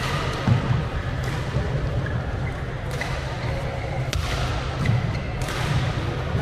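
Badminton rally: several sharp racket hits on the shuttlecock, about a second or so apart, with brief squeaks of court shoes. Behind them is the steady hum and clatter of a busy multi-court hall.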